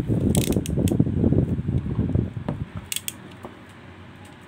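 A plastic-wrapped cardboard retail box being picked up and turned over in the hand: rubbing and crinkling handling noise with a few sharp clicks, going much quieter after about two and a half seconds.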